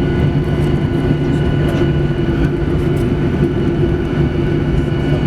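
Steady cabin noise inside a Boeing 737-800 on the ground after landing: an even drone with several constant tones from the aircraft's engines and air systems, with no change in level.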